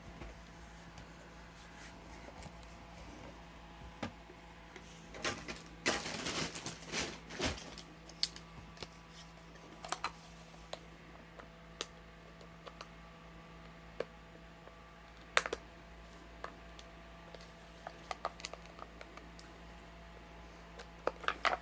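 Scattered light clicks and taps, most of them bunched about six to eight seconds in, over a faint steady hum.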